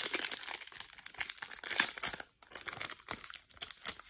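Packaging crinkling as small sticker sheets are taken out and handled, with a brief pause a little over two seconds in before the crinkling starts again.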